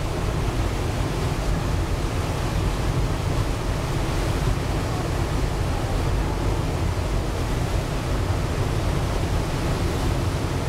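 Steady wind and water noise aboard a moving ferry: a low rumble of wind on the microphone with the rush of water.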